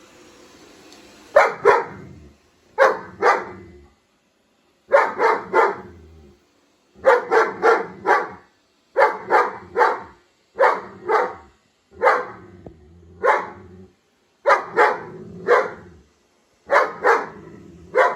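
German Shepherd barking at a robot vacuum cleaner, in repeated bursts of two to four loud barks roughly every two seconds.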